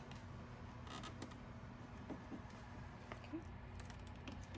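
Faint scratchy ticks and scrapes of vinyl wrap film being pressed and worked by hand against a car's chrome grille trim, over a low steady hum.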